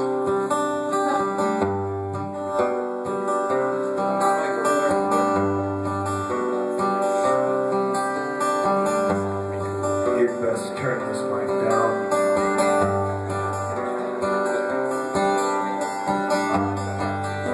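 Acoustic guitar playing a song's instrumental intro live, with a long low note sounding again about every four seconds under the chords.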